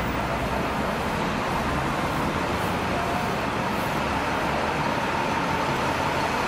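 Steady city traffic noise: an even roar with a low rumble underneath.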